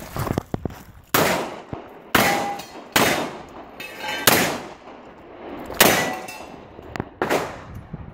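Six revolver shots fired at a slow, steady pace, roughly one a second, with a short ringing clang from the steel targets after some of the hits.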